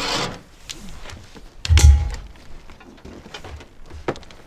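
Large cardboard boxes of sawmill parts being handled and shifted. A scraping rustle at the start, one heavy thud about two seconds in as a box is set down, then a few light knocks.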